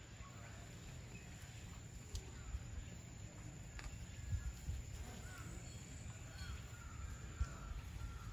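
Faint outdoor ambience: an uneven low rumble, a few faint bird chirps in the second half, and a steady thin high tone.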